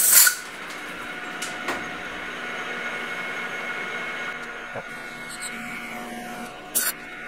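Compressed-air blow gun hissing as chips are blown out of the bore in a steel die blank, cutting off a moment in, with one more short blast near the end. Underneath, the metal lathe runs with a steady hum and a faint steady whine.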